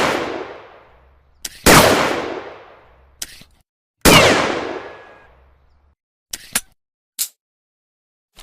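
A .44 Magnum snub-nose revolver fires two shots about two and a half seconds apart, each with a long echoing tail that dies away over about two seconds. A short click comes just before each shot. The tail of an earlier shot is fading at the start, and a few light metallic clicks follow near the end.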